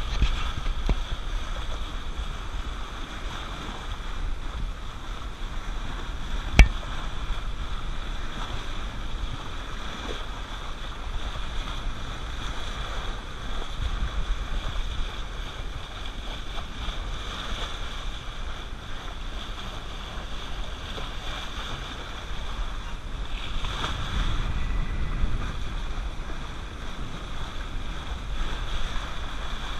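Wind buffeting the microphone and water rushing along the hull of a sailboat under way, a steady hiss and wash, with one sharp knock about six and a half seconds in.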